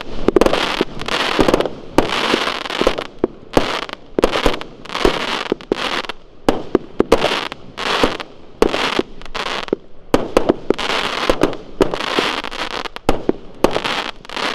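A Geisha Pyrorebels consumer firework cake firing shot after shot, about two a second: each a sharp pop followed by a short hiss as the red and gold stars burst.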